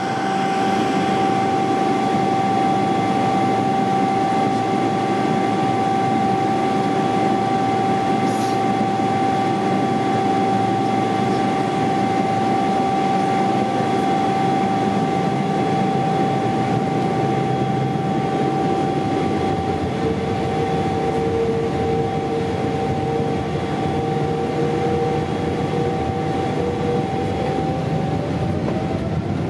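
Jet engine noise: a steady rumble with a high, steady whine on top. About two-thirds of the way through a second whine comes in, and near the end it climbs in pitch as the engines spool up.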